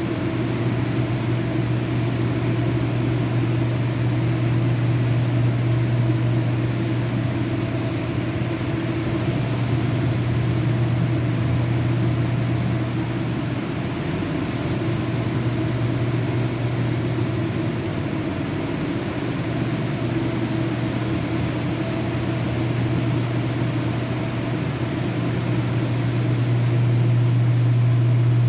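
Steady machine hum: a strong low drone with a few fainter higher tones over an even hiss, briefly weaker about halfway through.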